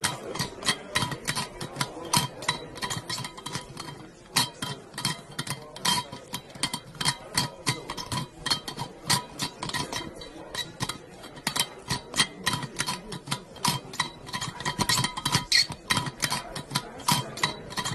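Hydro Flask metal water bottle and its lid being fiddled with: a long, irregular run of small metallic clinks and clicks, several a second, each with a slight ring.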